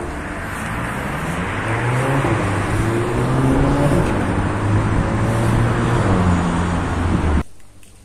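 Road traffic: cars passing on a nearby street, a steady rush of tyre and engine noise with engine notes rising and falling. It cuts off abruptly near the end.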